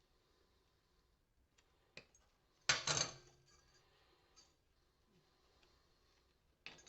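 Porcelain lamp-holder pieces and their brass parts being knocked and handled on a workbench: a light tap about two seconds in, then a louder clattering knock with a brief metallic ring, and a sharp click near the end.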